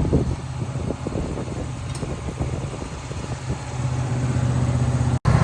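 An engine running steadily at idle, with irregular knocks and clunks over the first few seconds; the engine grows louder about four seconds in.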